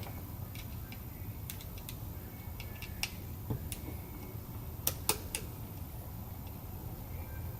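Small scattered clicks and taps of a screwdriver and small plastic and metal parts as the carbon brushes are unscrewed and pulled out of an oscillating multi-tool, with two sharper clicks close together about five seconds in, over a steady low hum.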